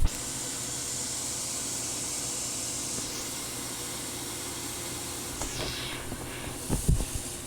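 Pool pump running: a steady motor hum under an even hiss of rushing water and air. A few light knocks near the end.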